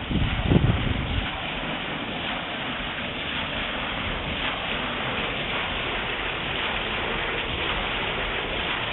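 Water rushing steadily along a mill leat and down its wooden trough onto the waterwheel, an even rushing without a break.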